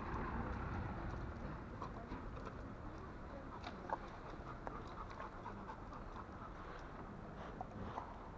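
Dogs panting steadily on a walk, with scattered faint light clicks.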